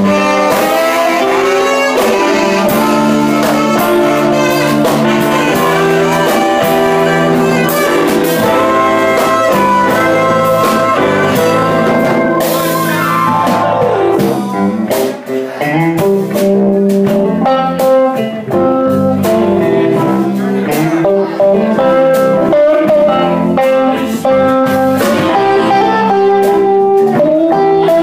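Live blues band playing an instrumental passage: electric guitars, saxophone, keyboard and drums. About halfway through a quick run of notes falls steeply in pitch.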